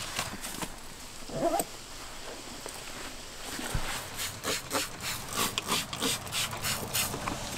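Hand trigger spray bottle misting a rubber hunting boot: a run of short hissing sprays, about three a second, in the second half. Before that comes a short scrape about a second and a half in.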